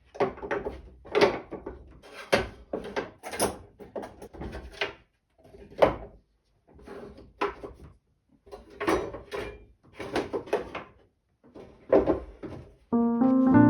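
A bird cherry wooden toolbox being handled: a series of wooden knocks and clunks at irregular spacing, with a couple of short pauses.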